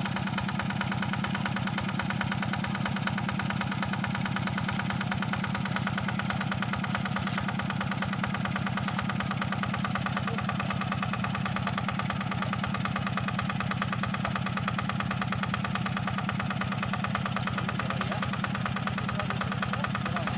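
Yanmar single-cylinder diesel engine of a hand tractor running at a steady, even speed while it harrows a flooded rice field.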